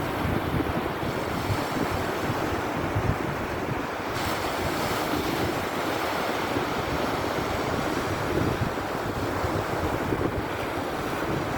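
Black Sea surf washing steadily on the shore, in gentle swells, with wind buffeting the microphone in a low, uneven rumble.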